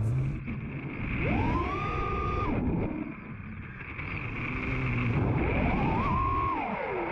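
FPV racing quadcopter's brushless motors whining, the pitch rising and falling twice with throttle punches.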